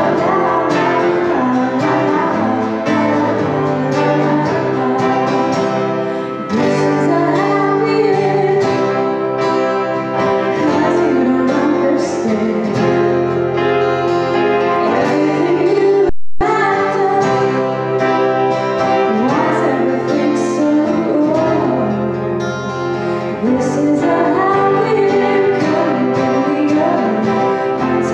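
A woman singing a song, accompanying herself on grand piano, with a steel-string acoustic guitar strummed alongside. The sound cuts out for a split second about sixteen seconds in.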